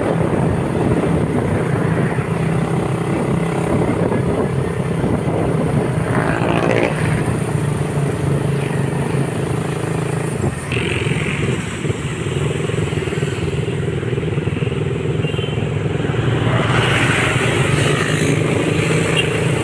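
Motorcycle engine running steadily, with a brief drop in level a little past halfway.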